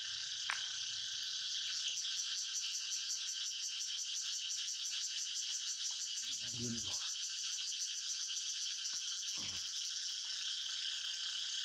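A dense insect chorus: a steady high buzz with a fine, rapid pulse. Two short low sounds come through it, about six and nine seconds in.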